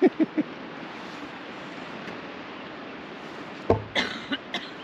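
Steady hiss of wind and surf on an open beach. About three and a half seconds in comes a sharp knock, then a few lighter clicks and rustles.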